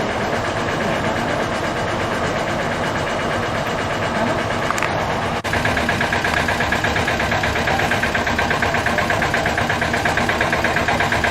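An engine running steadily at idle. About five seconds in there is a short break, after which the engine comes through with a fast, even pulsing beat.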